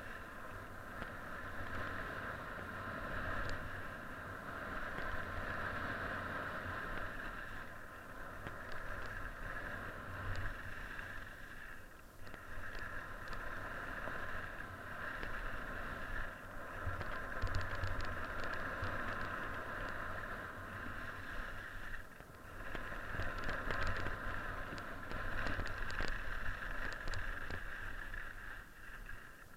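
Skis sliding and carving on snow, a steady hiss with wind rumbling over the microphone. The sound swells and eases with the turns, drops away briefly twice, and turns scratchier in stretches.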